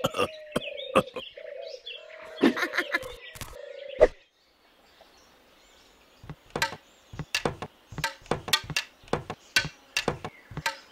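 Cartoon sound effects: birds chirping over a steady hum, cut off suddenly about four seconds in. After a short quiet gap comes a long run of irregular sharp knocks, as bamboo poles are worked into a bamboo bridge.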